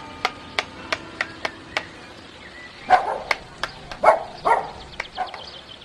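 A dog barking a few times in the second half, after a run of sharp, evenly spaced ticks about three a second.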